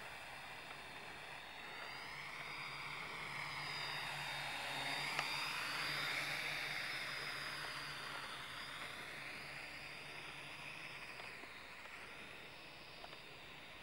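SKY Hawkeye FPV quadcopter in flight, its motors and propellers giving a steady whine whose pitch sweeps up and down. It grows louder toward the middle and fades toward the end.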